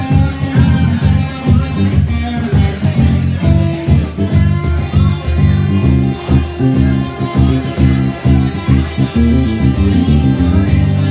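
A live band playing an instrumental stretch: guitar over a pulsing bass line with a steady beat, and no singing.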